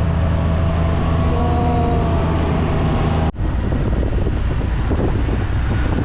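UTV engine running with a steady low drone on an off-road ride. The sound breaks off abruptly a little over three seconds in and resumes as a rougher, lower drone.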